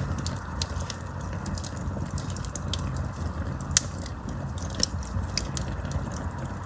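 Campfire burning: a steady low rush of flames with frequent irregular crackles and pops of burning wood, the sharpest pop a little under four seconds in.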